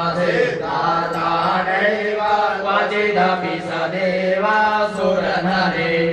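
Hindu mantras chanted in Sanskrit, one continuous flowing recitation over a steady low drone.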